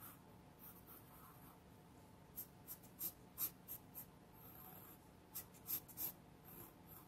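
Faint pencil strokes scratching on drawing paper: a run of about ten short, quick lines starting a couple of seconds in, with one longer stroke midway.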